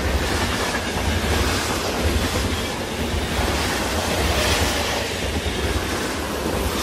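A train passing at speed: a steady low rumble with rushing wheel-on-rail noise.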